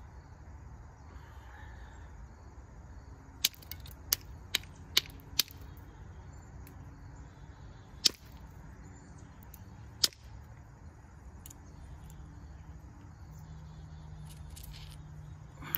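Flint being pressure-flaked with a copper-tipped tool: sharp clicks as small flakes snap off the edge. There are five in quick succession a few seconds in, then two single clicks a few seconds apart.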